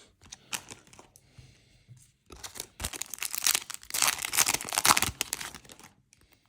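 Foil Yu-Gi-Oh! booster pack being torn open and its wrapper crinkled, a few light handling clicks first, then a few seconds of dense crackling that stops near the end.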